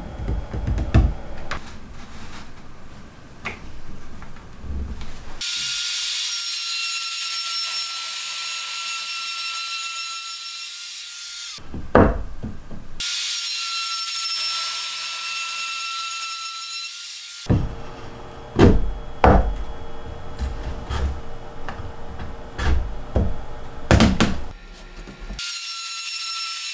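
Makita RT50DZ 18V cordless trim router running in stretches with a steady high whine, routing a slot in wood. Between and before the runs come sharp knocks and wood rubbing on wood as the pieces and jig are handled.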